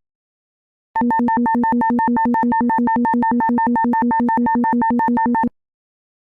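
Electronic synthesized tone pulsing rapidly, about nine beats a second, starting about a second in and cutting off suddenly near the end.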